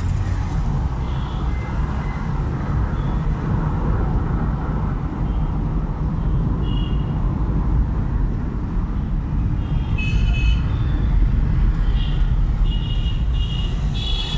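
Road traffic heard from inside a moving car's cabin: a steady low engine and tyre rumble, with short high-pitched toots from nearby traffic about ten seconds in and several more near the end.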